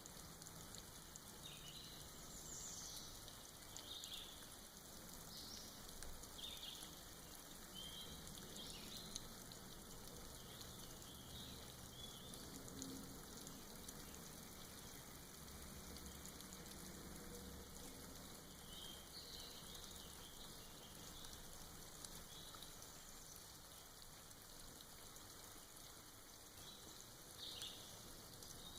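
Faint, soft rain dripping off moss, with scattered short bird chirps throughout.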